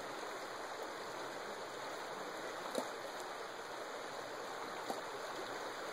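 Shallow creek water running over rocks, a steady rushing, with two faint ticks about three and five seconds in.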